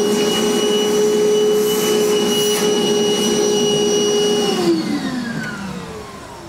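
Shop vacuum running with a steady motor whine, sucking up metal drill shavings. About four and a half seconds in it is switched off and the motor winds down with a falling whine.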